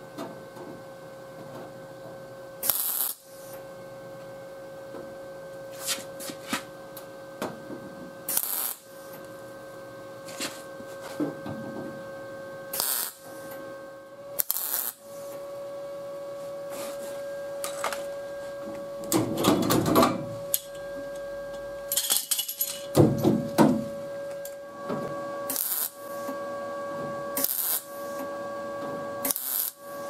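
ARCCAPTAIN MIG200 MIG welder laying short tack welds along the seam of a sheet-metal patch panel: about a dozen brief crackling bursts of the arc every few seconds, two of them longer and louder past the middle, over a steady hum.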